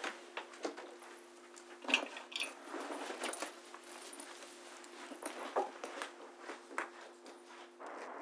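Someone gathering up a coat and shoulder bag at a desk: cloth and bag rustling with scattered clicks and knocks, and a bright metallic clink about two seconds in, over a steady low hum. Near the end it gives way to a steady hiss.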